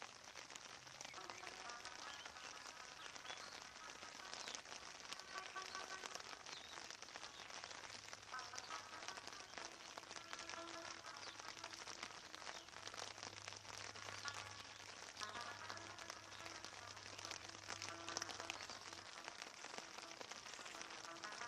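Steady rain falling and pattering on surfaces, with faint steady tones coming and going over it.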